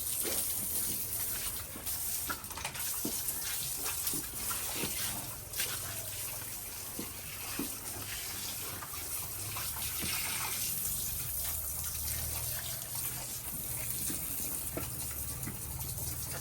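Water gushing steadily from a hose pipe in a pig pen, low pressure rather than a strong jet, with scattered small clicks and knocks over it.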